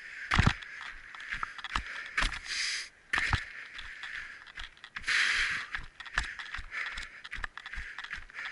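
Footsteps on the ground, irregular thumps about two a second, with scraping and rustling between them and two longer rushes of rustling noise.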